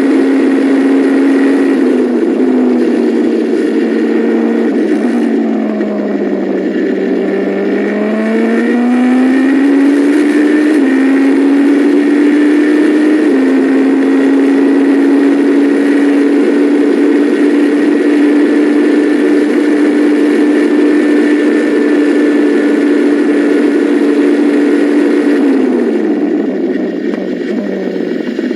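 Onboard sound of a Super Formula racing car's turbocharged engine at speed. The revs fall about five seconds in, climb again with two quick upshifts, hold high and steady for about twelve seconds, then drop away near the end.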